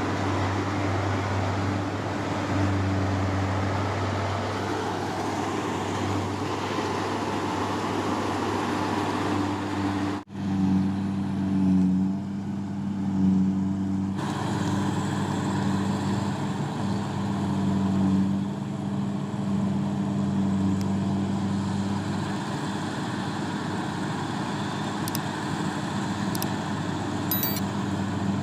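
Combine harvester engine running steadily with a low, even hum. The sound cuts off abruptly about ten seconds in and a similar steady engine hum carries on.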